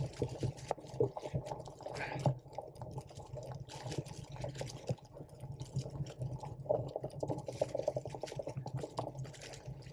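Drop-bar bicycle ridden over bumpy grass, heard through a handlebar-mounted camera: a muffled, irregular rattle of small clicks and knocks from the bike over the rough ground, over a low steady hum.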